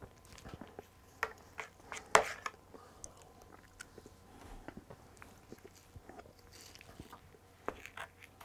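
A spoon scraping and clicking in a bowl of ice cream, with quiet chewing between scoops; the sharpest click comes about two seconds in.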